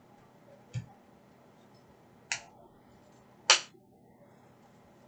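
Hockey trading cards being set down onto sorted piles on a table: three sharp taps, a second or so apart, the last one the loudest.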